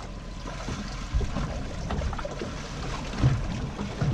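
Sea water sloshing and slapping against a small boat's hull, with low thumps about a second in and, loudest, a little over three seconds in.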